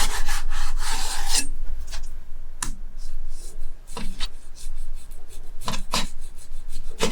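A knife slicing a thawed frozen chicken breast on a cutting board: a long sawing stretch in the first second and a half, then separate short cutting strokes every second or so.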